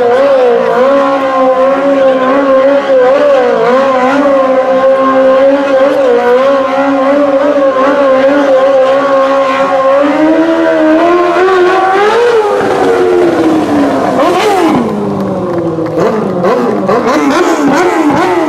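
Quad bike (ATV) engine held at high, steady revs for about ten seconds during a stunt, then revved up and down repeatedly, the pitch swinging rapidly near the end.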